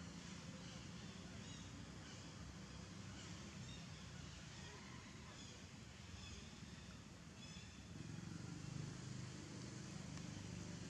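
Faint outdoor background: a steady low hum with scattered short, high chirps every second or so.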